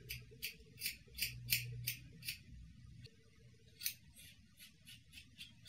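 Scissors snipping through the ends of long hair. There is a run of crisp snips about every 0.4 s, a short pause, one louder snip, then several quicker, lighter snips near the end.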